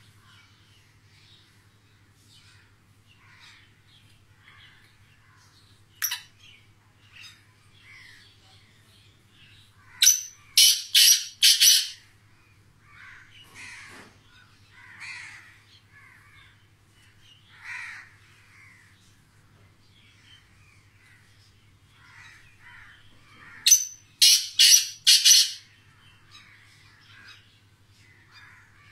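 White-plumaged black francolin (kala teetar) calling. One sharp note, then two runs of four or five loud, harsh, grating notes about fourteen seconds apart. Faint chirps and a steady low hum sit underneath.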